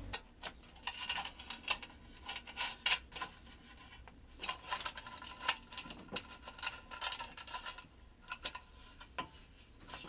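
Light metallic clicks, taps and clinks, irregular throughout, as a sheet-metal electrical access cover is handled and fitted against a boat water heater's metal panel; a few clinks in the middle ring briefly.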